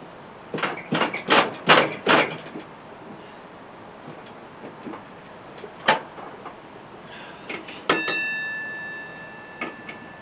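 Metal clanks and knocks of a wrench working on a seized spindle pulley nut on a steel mower deck: a quick run of clicks and knocks, a single knock a few seconds later, then a sharp metal clank that rings on for about two seconds.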